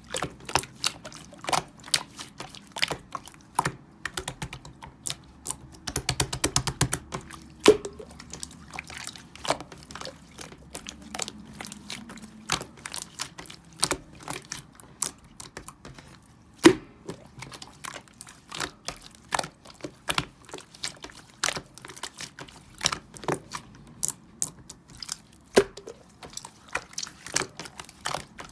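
Slime being squeezed, poked and stretched by hand, giving a steady stream of sharp wet clicks and small air-bubble pops, with a quick rattling run of clicks about six seconds in.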